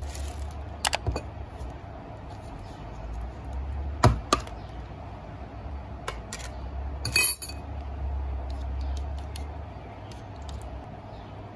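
Metal spoon clinking against a white bowl and a plastic yogurt tub: a few sharp clinks, then a short rattling clatter about seven seconds in, over a low steady hum.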